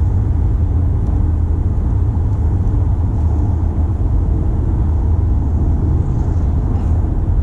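Steady low rumble of road and engine noise inside the cabin of a moving Toyota C-HR, with its 2.0-litre four-cylinder and CVT.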